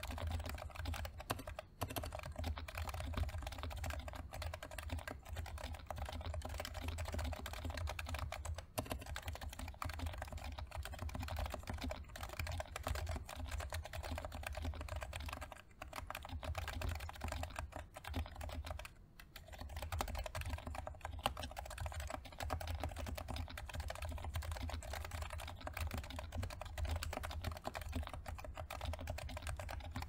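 Fast, continuous typing on a Leopold FC660C keyboard with silenced Topre electrostatic capacitive switches: a dense stream of muted keystrokes, broken by two brief pauses a little past the halfway point.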